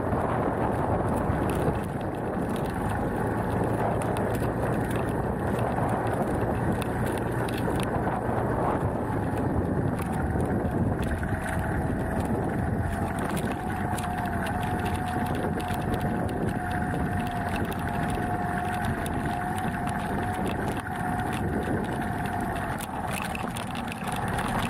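Beta Alp trail motorcycle's single-cylinder four-stroke engine running steadily on the move, with tyre noise on loose gravel and wind on the microphone. A thin steady whine joins in about halfway through and fades near the end.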